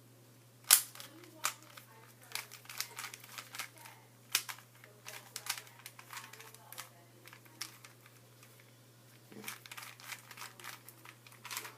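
Rubik's Cube being turned quickly in the hands, its plastic layers clicking and clacking in irregular bursts, with one sharp clack about a second in. A steady low hum runs underneath.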